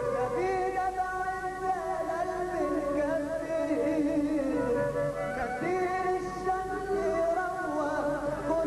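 Egyptian madih performance: a violin ensemble playing a gliding, ornamented Middle Eastern melody, with a male solo singer.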